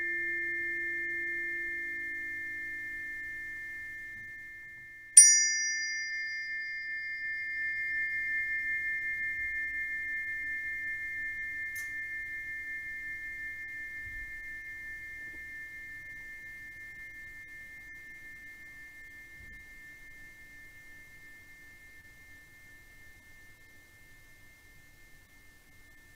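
A struck metal chime ringing in a sound bath: a high, pure ringing tone fading from an earlier strike, then one sharp strike about five seconds in that rings on with a long, slow fade.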